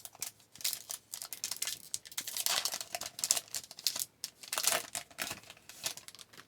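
A hockey card pack wrapper being torn open and crinkled, with irregular rustling and sharp crackles throughout, stopping abruptly near the end.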